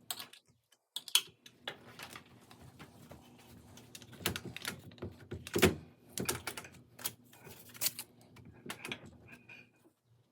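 Irregular sharp clicks and light metallic knocks of a wrench and bolts as the bolts on a triangular mounting bracket are tightened against a wooden support, the loudest knock about halfway through.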